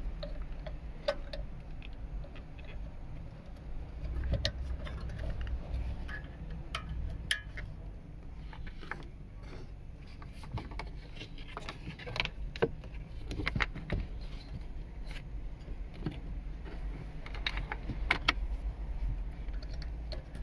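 Irregular clicks and rattles of plastic wiring-harness connectors and cables being handled and plugged into a car head unit's CarPlay interface, over a low steady hum.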